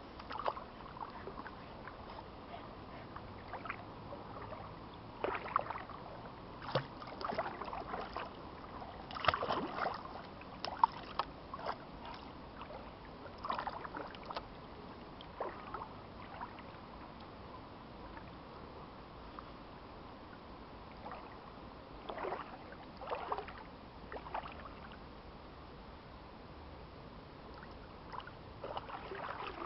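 Shallow creek water splashing and sloshing around a small dog's legs as it wades, in short irregular bouts separated by quieter stretches of faint steady hiss.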